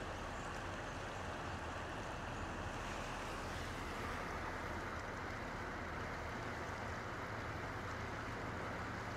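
Steady rushing of a shallow river running over rocks, an even hiss with a faint low rumble under it.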